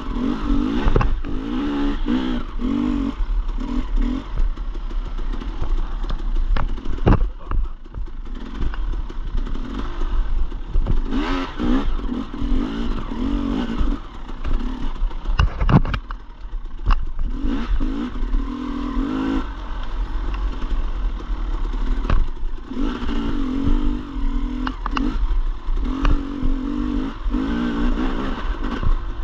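Dirt bike engine revving up and down over and over as it is ridden on a trail, with a few sharp knocks and some clatter along the way.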